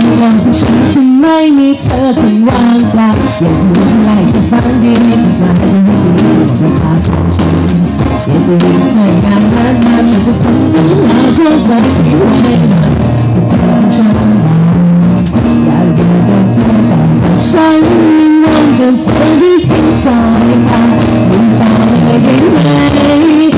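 Live rock band playing loudly: a drum kit struck with sticks, electric guitar and a singer's voice.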